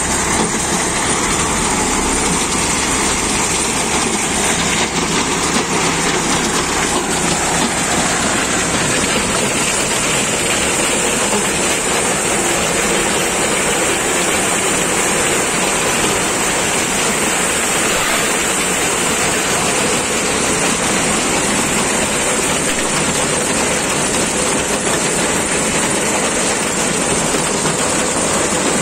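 A tractor-drawn, PTO-driven stone picker working, with steady, dense clatter and rattle as stones tumble across its steel sieve grate, over the steady running of a John Deere 5310 tractor's three-cylinder diesel engine under load.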